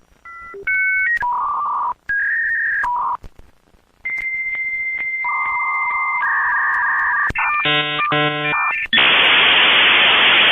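Dial-up modem connecting: a quick run of touch-tone dialing, then a series of held handshake tones and a fast warbling pattern, ending in a loud band of static-like hiss from about nine seconds in as the modems negotiate the connection.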